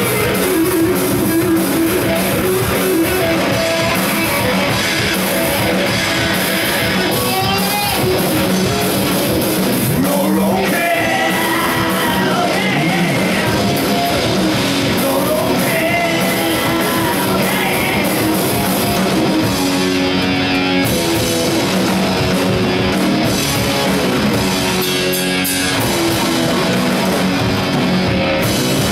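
Live rock band playing loud, guitar-driven rock on electric guitars and drums, with singing.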